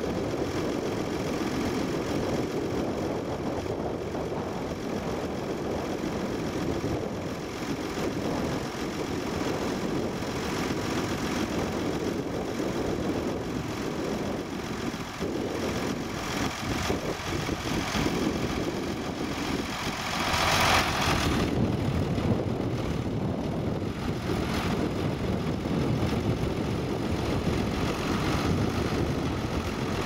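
Ford 8730 Powershift tractor's six-cylinder diesel engine running steadily under load while pulling a reversible plough through the ground. A brief rush of hiss rises about two-thirds of the way through.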